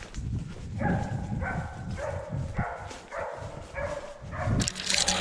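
Heavy rhythmic panting, about one breath every half second, over thudding footsteps, with a short burst of rustling near the end.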